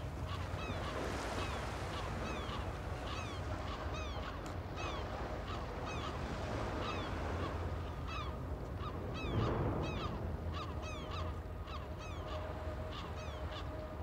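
A flock of gulls calling, many short falling cries overlapping one another, over a steady low rush of wind and surf.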